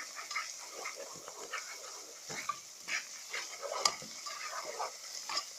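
Grated onion and spices frying in oil and ghee, sizzling steadily, while a spoon stirs and scrapes through it in short irregular strokes.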